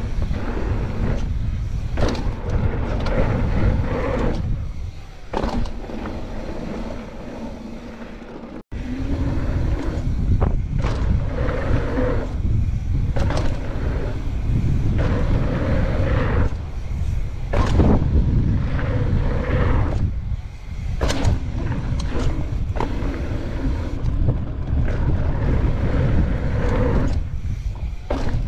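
Wind buffeting an action-camera microphone and mountain bike tyres rumbling over a packed-dirt trail through berms and rollers, with scattered knocks and rattles from the bike. The sound cuts out for an instant about a third of the way in.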